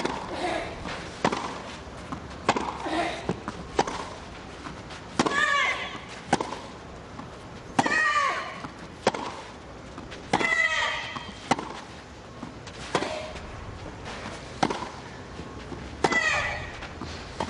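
Tennis rally: a racket hits the ball about every 1.3 seconds, with a player's short high shriek on every other shot.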